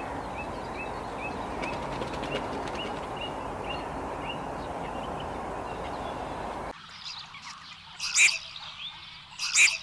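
Steady outdoor background noise with a small songbird's quick repeated chirps, about three a second, in the first few seconds. After an abrupt cut the background drops, and two loud harsh duck calls from red-crested pochards come about a second and a half apart near the end.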